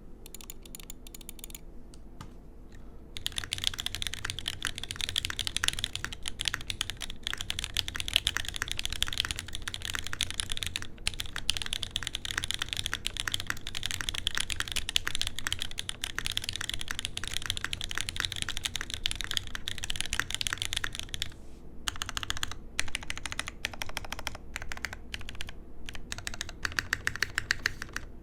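Typing on a JJW Cloudline mechanical keyboard with Cherry MX Black linear switches in an aluminum plate, under GMK keycaps. A few light taps, then fast continuous typing for most of the stretch, then slower separate key presses with short pauses near the end.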